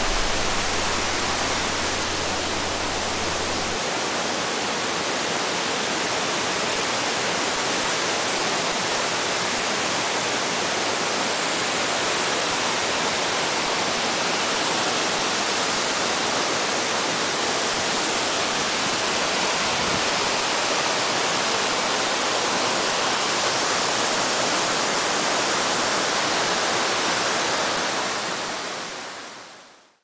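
Rushing water of a rocky mountain stream running over boulders, a steady even rush that fades out over the last couple of seconds.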